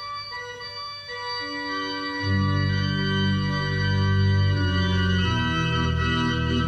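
Church organ playing slow, held chords. Deep bass notes come in about two seconds in, making the sound fuller, and the chord changes again near the end.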